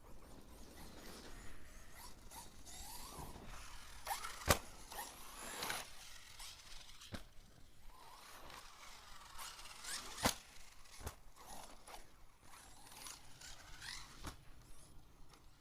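Arrma Mojave 1/7-scale RC buggy driving, its electric motor whining up and down in pitch several times over a crunchy, clicking drivetrain: one of its differentials has failed. Two sharp knocks stand out, about four and a half and ten seconds in.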